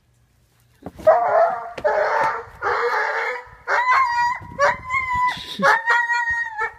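A dog in a fight with a cat: about a second in, three harsh, rough bursts, then a run of high, held yelping cries broken by short gaps.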